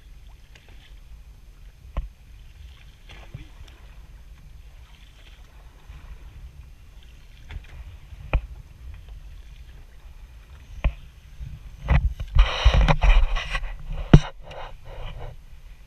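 Water slapping against a small boat's hull and wind rumbling on the microphone. A few sharp knocks on the boat come through it, and a louder burst of splashing noise comes about twelve seconds in.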